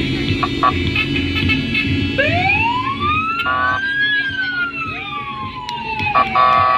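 An emergency vehicle's siren sounds one slow wail, rising for about two seconds and then falling away. Two short horn blasts come with it, the second near the end.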